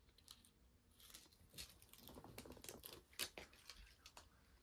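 Faint paper rustling and crinkling as the backing liner is peeled off the adhesive strip of a stick-on shotgun side saddle shell holder, in a few short scattered crackles.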